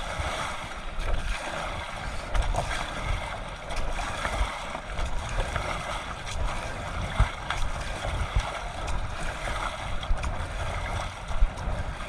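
River water rushing past a raft, with wind buffeting the microphone in uneven gusts.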